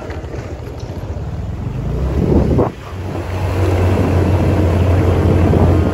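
Motorbike engine running while riding, with wind rumbling on the microphone. The sound drops for a moment a little before halfway, then settles into a steady low drone.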